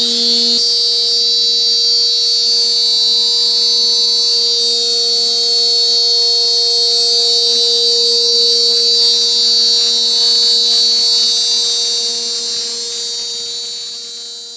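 CNC router spindle running at a steady speed, a constant high whine with a hum beneath it. It fades out near the end.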